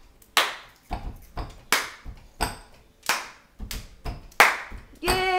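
A toddler clapping his hands, about a dozen sharp claps at roughly two a second, slightly uneven. Near the end a child's voice begins a held sung note.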